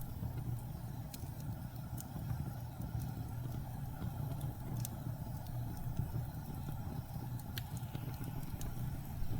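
Blizzard wind as a steady low rumble, with a wood fire crackling over it: scattered sharp pops, a few of them standing out clearly.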